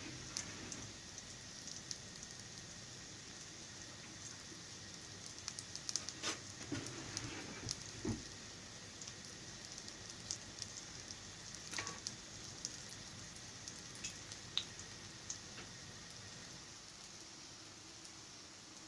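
Pudla batter frying in a pan: a steady sizzle with scattered crackles and pops, busier about six to eight seconds in and again near twelve seconds.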